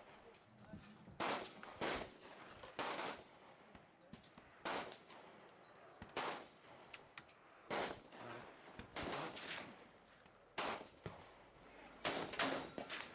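Gunfire at an outdoor shooting range: about a dozen rifle shots at uneven intervals, each with a short echo, with the loudest coming in a quick cluster near the end.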